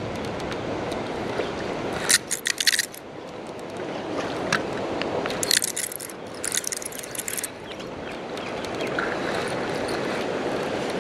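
Steady rush of a flowing river, with two short spells of rapid clicking and ticking from a spinning reel being handled, about two seconds in and again from about five and a half to seven and a half seconds.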